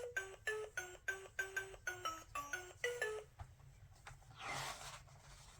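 Sound book's electronic sound chip playing a short tune of quick, bell-like notes, about four a second, which stops about three seconds in; a brief hiss follows about a second later.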